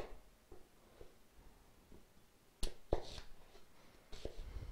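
Chef's knife chopping an onion on a cutting board: a few sharp, irregular taps of the blade hitting the board, with a pause of about two seconds after the first.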